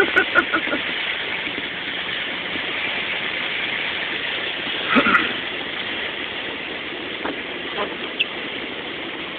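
Steady rushing of floodwater thrown up by a Ford Ranger pickup's tyres as it drives through a flooded road, heard from inside the cab. There is a brief louder burst about five seconds in.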